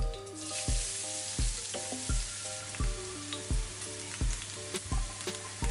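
Chopped onion hitting hot oil in a frying pan and sizzling, a bright hiss that starts at once as the onion goes in and keeps going. Background music with a steady beat plays under it.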